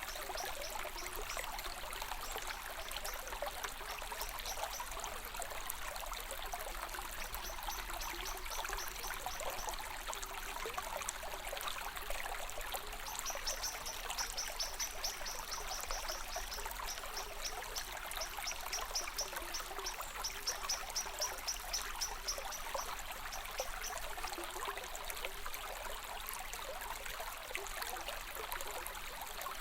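Small stream trickling and splashing steadily. A rapid, high-pitched pulsing runs alongside it and is strongest in the middle.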